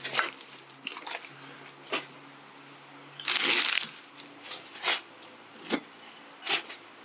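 Gear being handled and packed: a series of short rustles and knocks, with a longer crinkling rustle about three seconds in.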